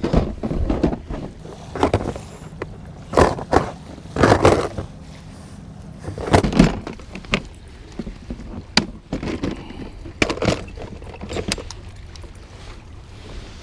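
Clear plastic tackle box being handled and knocked against a plastic kayak's deck: irregular knocks, clunks and rattles, a dozen or so, some loud and some light.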